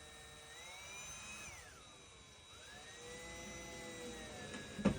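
Cordless drill motor whirring in two runs, its pitch rising as the trigger is squeezed and falling as it is eased off, followed by a sharp knock near the end.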